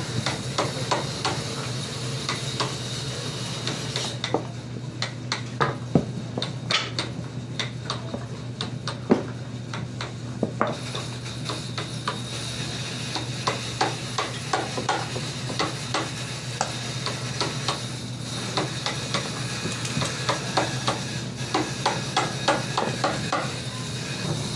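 Mitred hardwood frame boards being handled and fitted together: irregular light knocks, taps and scrapes of wood on wood, over a steady low hum.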